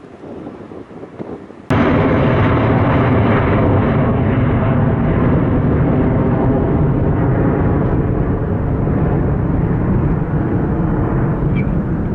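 Airbus A319CJ twin-jet climbing away after takeoff, its engines at takeoff power in a loud, steady, rough rumble. The noise cuts in suddenly about two seconds in, after faint distant aircraft noise with wind.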